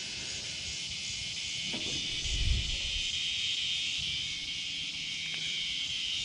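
Steady high-pitched chorus of insects, likely crickets. A soft low thump comes about two and a half seconds in.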